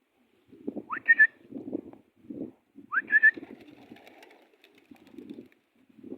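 Pigeons cooing in low, pulsing phrases, with two short rising whistles about a second and three seconds in.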